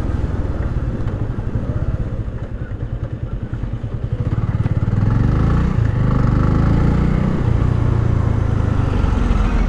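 Bajaj Avenger 150's single-cylinder engine running at low revs, then picking up about four to five seconds in and running on steadily louder.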